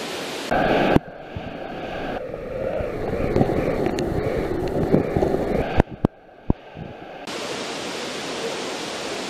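Rushing river water, in several short clips joined by abrupt cuts with a few clicks. In the middle stretch the sound is duller and more muffled, as heard by a camera held underwater. From about seven seconds in, a steady rushing hiss of the river.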